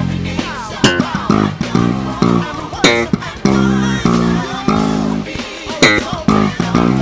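Gospel band music with an electric bass, an ESP LTD B-155DX, playing a busy groove of quick low notes, over drums with sharp hits every second or two.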